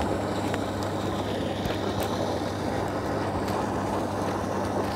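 Small motorboat's engine running steadily with an even low hum, over the rush of water and wind as the boat moves along.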